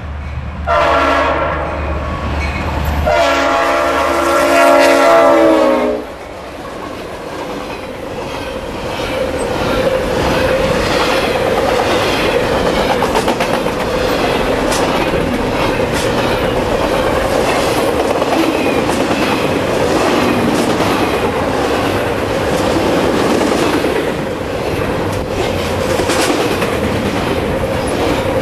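EMD SD60 locomotive's Nathan RS5T five-chime airhorn sounds two blasts, a shorter one and then a longer, louder one whose pitch drops as the locomotive passes. Double-stack intermodal cars then roll by, their wheels clattering over the rail joints with a steady tone ringing through the noise.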